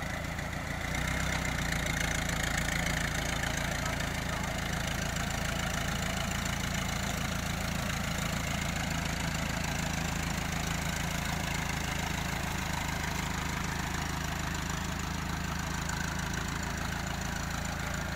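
Farm tractor's diesel engine running steadily under load as it hauls a boat trailer up out of the water, getting louder about a second in as it revs up to pull.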